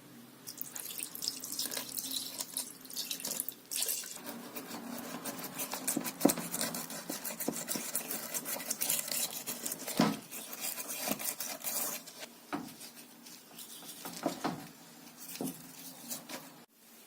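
Running or splashing water, with irregular clicks and knocks of small objects being handled. It thins out to scattered clicks in the last few seconds.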